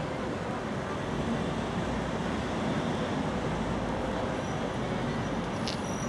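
Steady low rumble of road traffic and outdoor town noise, with a brief high squeak near the end.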